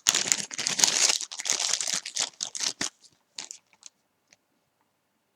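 Packaging crinkling and rustling as small items are unwrapped, dense for about three seconds, then a few scattered clicks and rustles before it stops.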